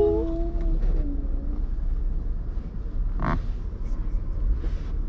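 Low, steady rumble of the family car heard from inside the closed cabin as it idles or creeps along. A voice trails off in the first second, and a single brief pitched sound cuts in about three seconds in.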